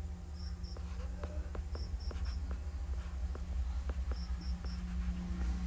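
A cricket chirping in short groups of two or three high pulses, repeating about every two seconds. Light ticks of a stylus tapping a tablet screen as writing goes on, over a steady low electrical hum.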